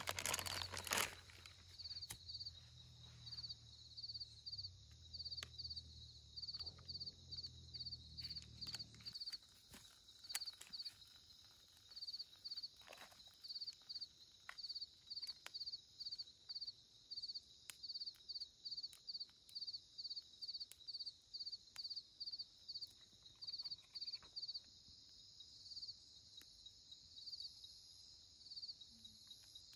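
Night insects, crickets, chirping: a steady high trill with repeated chirps a few times a second. A low hum runs underneath and stops about nine seconds in, with scattered faint clicks.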